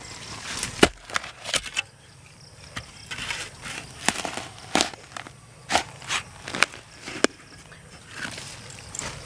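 A long-handled spade being pushed into damp soil with a foot on the blade: a run of sharp crunches and scrapes, roughly one a second, with soil and leaf litter rustling between them.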